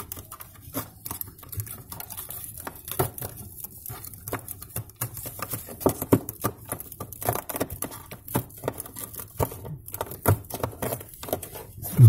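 Irregular small clicks and taps of fingers and a small plastic object picking at wet ice on a refrigerator's freezer floor. The ice has built up because the defrost heater has failed, according to the technician.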